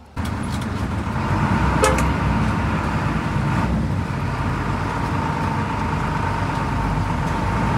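Inside the cab of an intercity bus pulling away: the diesel engine running with a deep rumble, a thin steady whine above it, and one brief sharp sound about two seconds in.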